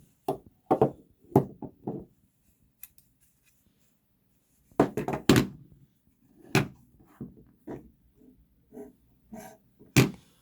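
Large folding knife being handled: an irregular string of short clicks and knocks from the blade and handle, with a sharp click near the end.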